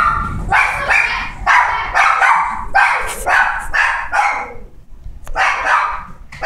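A dog barking rapidly and repeatedly, about two barks a second, with a short pause about five seconds in before it barks again.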